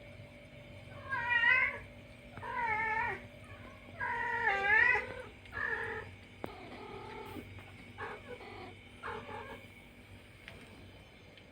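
A cat meowing repeatedly: about seven drawn-out meows with a wavering pitch, the first four loud and the rest fainter.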